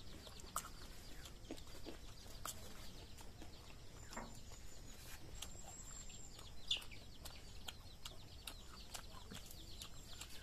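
Chickens clucking faintly, with scattered small sharp clicks.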